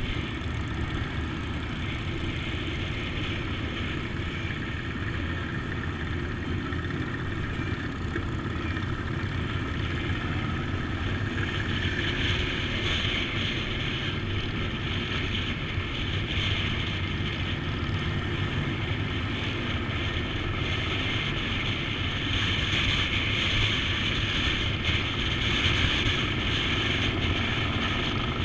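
Motorcycle riding at speed, filmed from the bike: steady wind rush on the microphone over a low engine drone. It grows somewhat louder and brighter about twelve seconds in.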